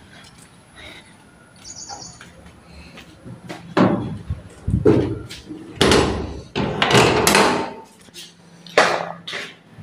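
A series of loud knocks and thuds, roughly one a second, starting about four seconds in. Earlier there is a brief, high bird chirp about two seconds in.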